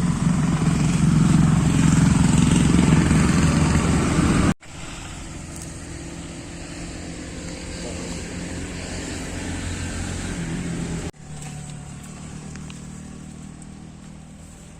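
Steady road-vehicle engine and traffic noise, a low rumble. It drops abruptly to a quieter level about four and a half seconds in, and again at about eleven seconds, at edit cuts.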